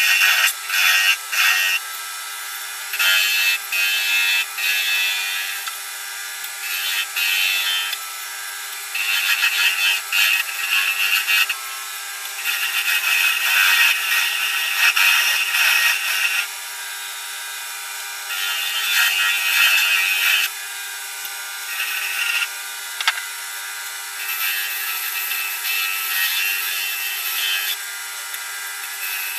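Wood lathe running with a steady hum while a hand turning tool cuts a spinning celery wood pen blank in repeated scraping passes of a second or two each. After about 24 seconds the scraping turns softer and more even, as a pad is pressed against the turning blank.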